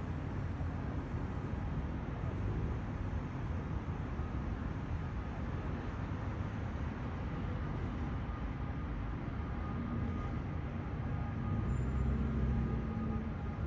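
Steady city street traffic: car engines and tyres making a continuous low rumble. Faint steady tones come in near the end.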